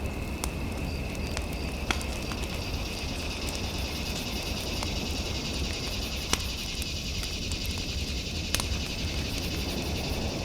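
Fireplace fire crackling, with occasional sharp pops over a steady low rumble. A steady high tone sits underneath.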